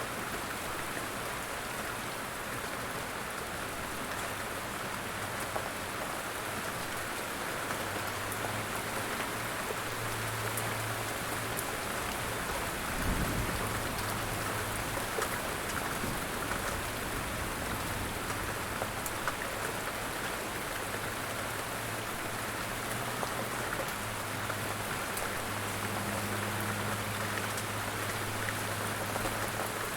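Steady rain falling on a surface, an even hiss of drops, with a brief low thump about halfway through.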